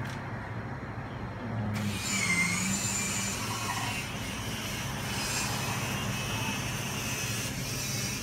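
Electric linear-actuator door opener running as it pushes a wooden shop door open. A motor whine starts about two seconds in, gliding in pitch at first and then running steadily.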